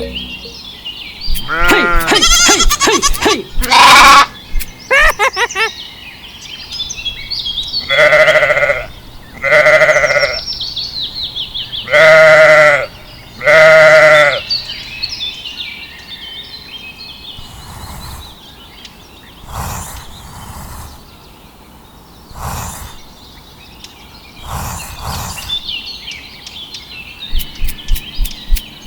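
Goats bleating: a series of loud, wavering bleats, each about a second long, coming thick in the first half and fainter and sparser later, with small bird chirps in between.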